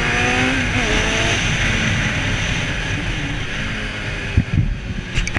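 Kawasaki Z800 motorcycle ridden at speed, heard from an onboard camera: wind rushing over the microphone with the engine running low underneath. Music fades out in the first second or so, and a few brief wind buffets thump near the end.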